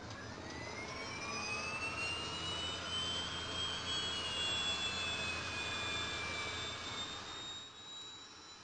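A jet-aircraft sound effect, a rushing noise with whining tones that glide up and down in pitch. It swells through the middle and eases off near the end.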